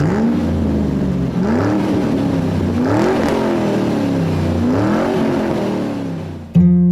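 Car engine revved up and let fall back about four times, its pitch rising and dropping with each blip, then fading out; strummed acoustic guitar music cuts in just before the end.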